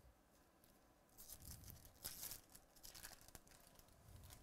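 Faint crinkling and tearing of a trading-card pack wrapper being ripped open by hand. It starts about a second in, is loudest around two seconds, then eases off.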